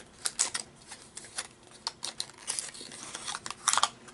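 Small cosmetic packaging handled and opened by hand, making irregular crinkling clicks and crackles, a little louder near the end.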